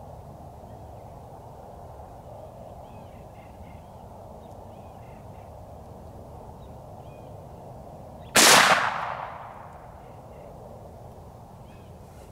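A single rifle shot about eight seconds in, loud and sharp, its report echoing away over about a second. Before it, faint bird calls sound in the background.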